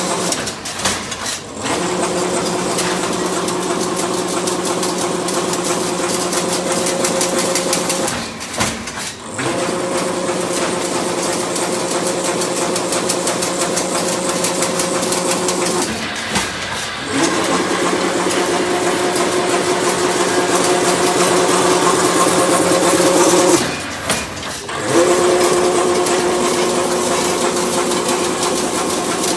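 Fully automatic chain link fence weaving machine running: a fast, steady mechanical clatter over a motor hum, easing off briefly about every eight seconds.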